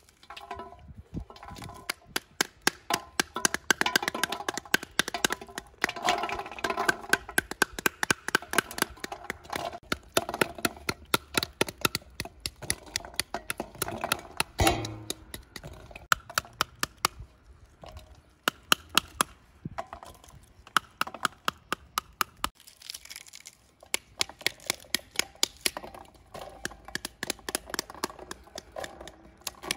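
Ripe pomegranates being cut and broken apart by hand over an enamel basin: frequent sharp cracks and clicks from the tearing peel and from seeds and knives knocking against the basin.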